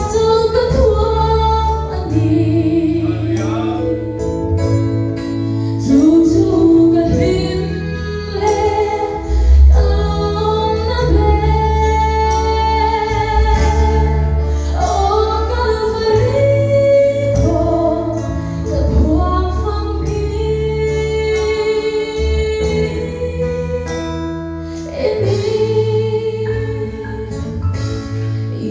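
A woman sings a Mizo gospel song through a microphone and PA, backed by amplified electric guitars with a bass line underneath.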